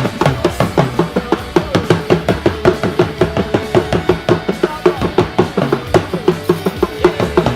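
Music with fast, steady drumming: several sharp drum strokes a second over pitched notes.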